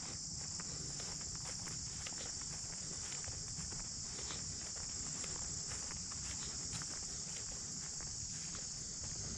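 A steady, high-pitched insect chorus of crickets trilling without a break, with the hiker's footsteps on the trail ticking in underneath.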